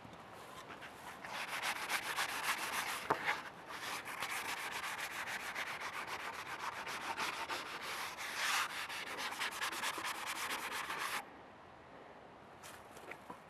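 Vintage handsaw cutting through a wooden board, a steady rasping of rapid strokes that starts about a second in and stops abruptly near the end.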